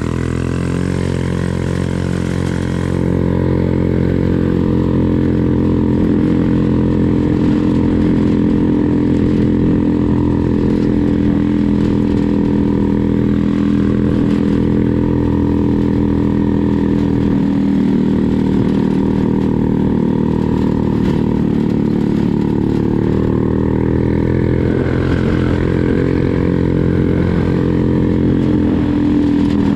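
Yerfdog 3206 buggy's 150cc GY6 engine running at a steady pace while the buggy drives along, its pitch holding nearly constant.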